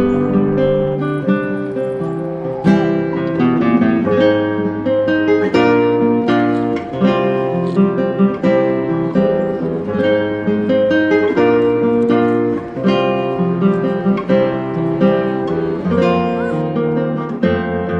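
Background music: acoustic guitar picking and strumming a steady run of notes and chords.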